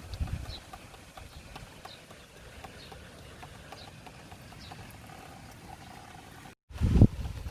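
Strong wind buffeting the microphone outdoors, a steady low rumble with a loud gust at the start and another near the end.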